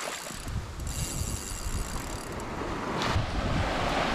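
Wind buffeting the microphone over the wash of beach surf; the surf hiss grows louder in the last second or so.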